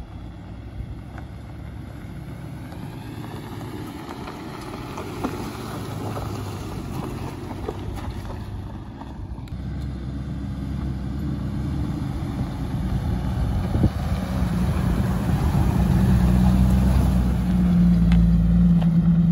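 A Subaru Crosstrek driving up a gravel fire road toward the microphone, then, after a break about halfway, a Jeep Wrangler TJ climbing toward it and passing close. The engine and tyre noise grows steadily louder and is loudest near the end, with wind on the microphone.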